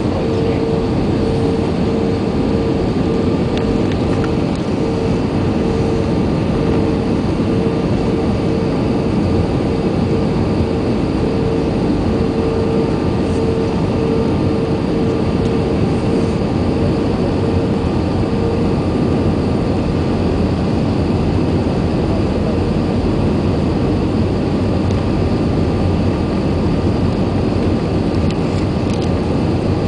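Cabin noise inside an Airbus A320 on descent for landing: the steady roar of the engines and the airflow over the fuselage. A steady mid-pitched hum sits on top and fades out about two-thirds of the way through.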